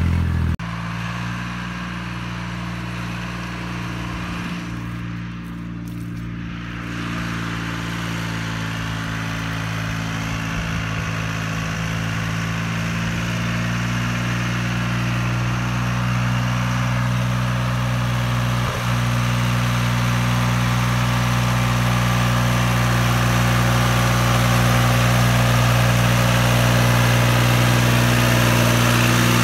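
Store 404 tractor's diesel engine running steadily at an even pitch, pulling through mud and up a track. It grows steadily louder as the tractor comes closer.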